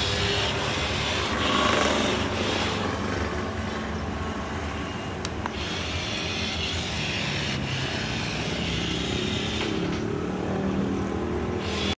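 Remote-control toy excavator's small electric motors and plastic gears whirring steadily as it drives on its tracks and works its arm.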